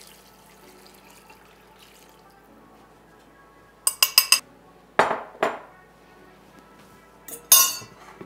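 Broth pouring from a glass measuring cup into a casserole dish: a faint trickle. About four seconds in, a few sharp glass clinks, then two knocks a fraction of a second apart as the glass cup is set down on the countertop. Another loud clatter near the end as the blender jar is handled.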